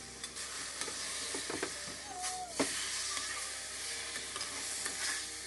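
A whole seasoned chicken sizzling as it sears breast-down in a hot, dry aluminium pot with no oil. A few light clicks of metal tongs against the pot come through, the sharpest about two and a half seconds in.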